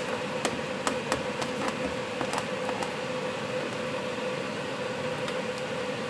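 A pot of gooseberries and sugar boiling: bubbles pop and click sharply in the thick fruit during the first few seconds, over a steady hiss and a low hum.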